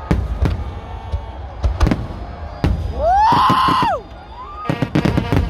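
Aerial fireworks shells bursting overhead: a string of sharp bangs, with a quick cluster of them near the end. A little after halfway a loud tone rises, holds for about a second and falls away.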